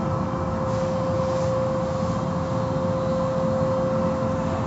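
Automatic car wash machinery running: a steady mechanical drone with a constant, unchanging whine over a low rumble.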